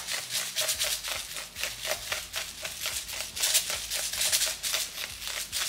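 Hand-twisted spice grinder cracking seasoning, a continuous run of quick dry grinding clicks that keeps going without a pause.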